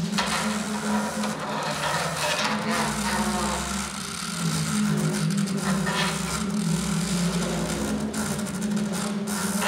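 Amplified scraping and rattling texture from coins scraped across Almglocken, over a steady low buzz from the small speakers of Arduino-built electronic instruments.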